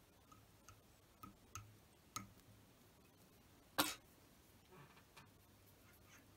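Small, irregular clicks and taps of fly-tying tools and fingers being handled at the vise, with one sharper click a little before four seconds in.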